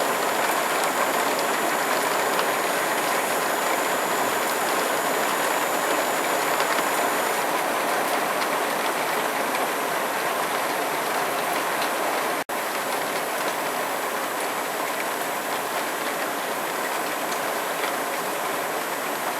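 Heavy rainfall pouring down steadily, a dense even hiss with no thunder, broken for an instant about halfway through.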